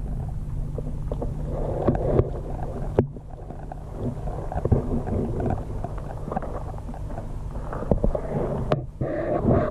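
Aquarium water sounds heard close up: a steady low hum, like a filter or air pump, under irregular bubbling and gurgling with small clicks. The hum drops a little about three seconds in.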